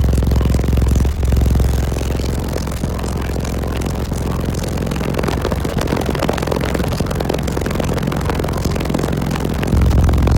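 Orion HCCA subwoofers playing very loud deep bass in a car, with the car's panels and trim rattling and buzzing under it. The bass eases off about a second in and comes back up near the end.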